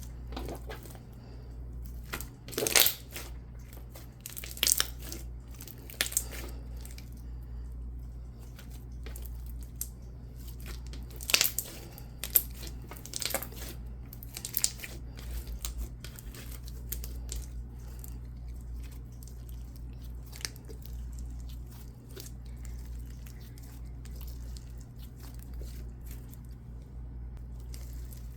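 Coated clear slime being stretched, folded and pressed by hand: sticky crackling with irregular sharp bubble pops, the loudest of them spread through the first fifteen seconds or so.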